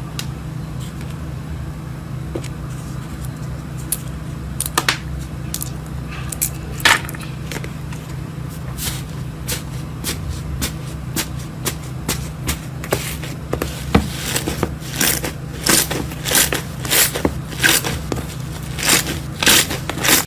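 Crunchy slime being squeezed and worked by hand, with a continuous scraping texture and sharp crackles and pops. The pops come more often in the last third.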